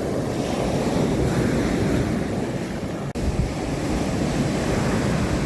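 Sea waves breaking and washing up the beach, a continuous rushing surf, with wind buffeting the microphone. The sound drops out for an instant about three seconds in.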